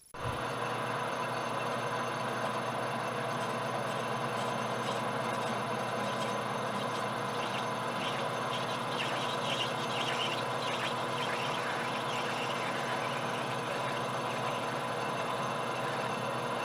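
Metal lathe running steadily with a parting tool cutting into a spinning Delrin rod, with faint scraping from the cut in the middle stretch. The sound starts abruptly.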